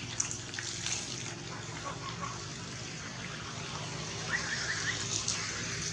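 Outdoor ambience of light crackling and rustling over a steady low hum, with a small bird chirping a quick run of four short notes about four seconds in.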